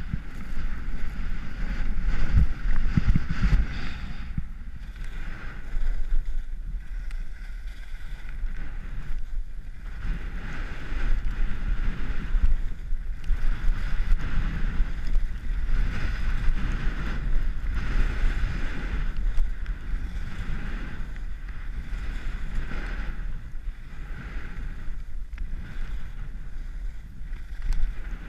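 Skis, Salomon Rocker II, scraping and hissing over packed snow through a series of turns, the scrape swelling and fading every second or two. Wind rumbles on the camera microphone underneath.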